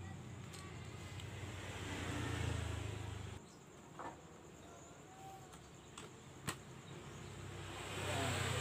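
A low droning hum that cuts off abruptly a few seconds in and comes back near the end, with a few sharp clicks and taps from the plastic housing and parts of a hand mixer being handled during reassembly.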